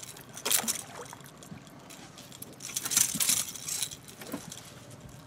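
A striped bass being landed into an aluminium boat: splashing water and the fish thrashing on the metal deck, in two sudden noisy bursts, a short one about half a second in and a longer one around three seconds in.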